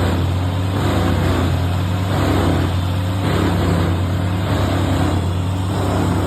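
Large industrial wood chipper running under load: a loud, steady engine drone with a deep hum, and a coarse chipping noise that swells and fades about every three-quarters of a second.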